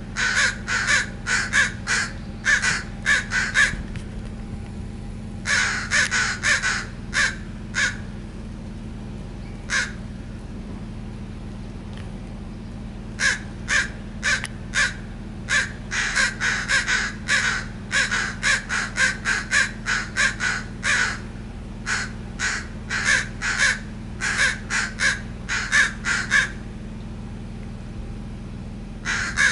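Crows cawing in quick runs of short calls, several a second, with a pause of a few seconds about a third of the way through: territorial calls from crows nesting in the yard.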